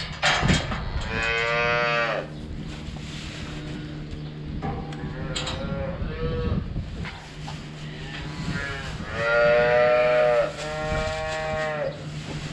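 Young dairy calves bawling in their pens: one call about a second in, a few shorter ones midway, then two long calls back to back near the end, over a steady low hum.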